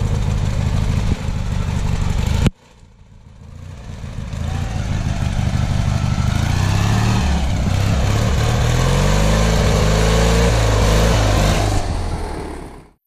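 Off-road lawn tractor's small engine running under load, its pitch climbing and wavering as it is driven up through tall grass. The sound drops out suddenly about two and a half seconds in, builds back up, and stops abruptly near the end.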